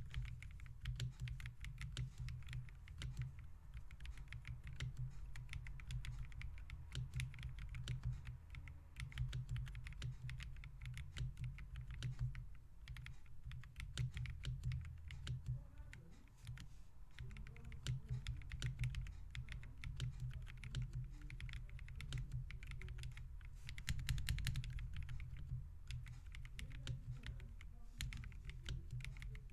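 Fancytech Origin65A custom mechanical keyboard with Akko CS Snow blue grey switches and GMK Iceberg clone keycaps being typed on, with a quick, continuous run of keystrokes. A few strokes stand out louder, notably about twenty-four seconds in.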